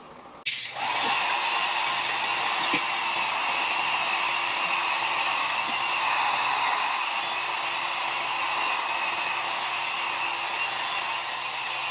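A steady, loud whirring and hissing of a running motor, which starts abruptly about half a second in and holds steady.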